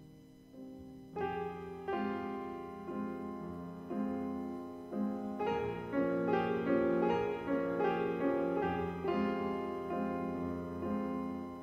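Slow, gentle piano music: single notes and chords struck one after another and left to ring, quiet at first and filling out after about a second.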